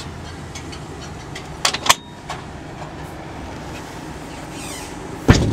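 Steady outdoor background noise with a few sharp clicks about a second and a half in, and one loud thump near the end.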